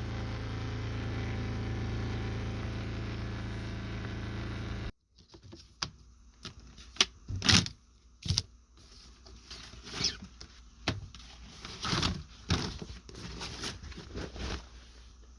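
Spin dryer of a Costway mini twin-tub washing machine running with a steady hum, which cuts off sharply about five seconds in. Then come a series of sharp clicks and knocks.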